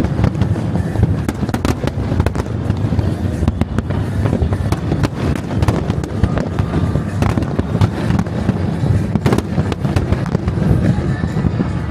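New Year's Eve fireworks recorded close up at the launch ramp: a dense, unbroken run of bangs and crackles from shells launching and bursting, over a steady low rumble.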